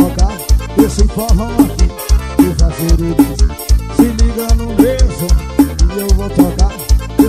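Forró band music with a steady, driving drum-kit beat under a melody line that slides up and down in pitch.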